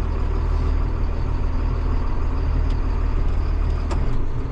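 Farm tractor engine running steadily, a low drone that eases slightly just before the end.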